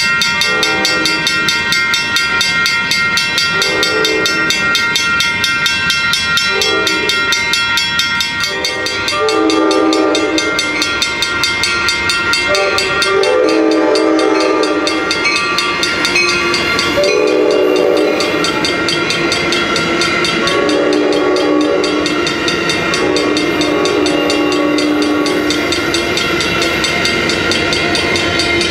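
Passenger train locomotive horn sounding a long series of blasts, some short and some held for a couple of seconds, over a fast, steady ringing from the locomotive bell. Near the end the cars' wheels roll by close.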